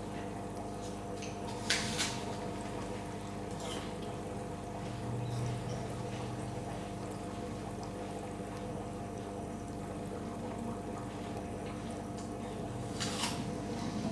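Steady hum of aquarium equipment with water trickling in the tank, and a few brief splashy sounds, twice about two seconds in and again near the end.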